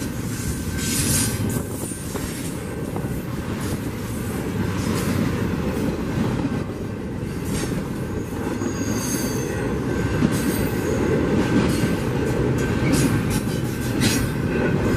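Double-stack intermodal freight train passing: a steady rumble of steel wheels on the rail with rapid clicking and clatter, and brief high wheel squeals about nine seconds in.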